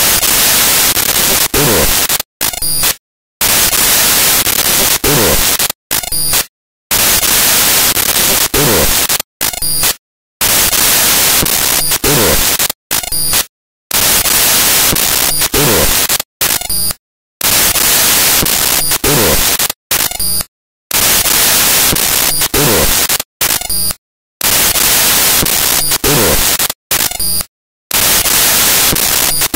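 Loud hissing static, like a broken or corrupted audio track, cut by a brief silent gap about every three and a half seconds. Each stretch of hiss carries one falling, whistle-like tone that drops over about a second.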